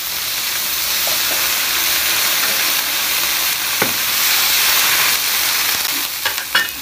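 Large iron wok of boiling chili-bean broth hissing steadily as pieces of rice-field eel are tipped in and stirred with a metal ladle. A few short clinks of the ladle against the wok come near the end.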